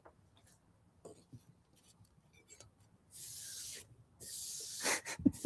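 Two short brushing strokes across a wooden tabletop, each under a second, the second following right after the first, with a few faint clicks before them.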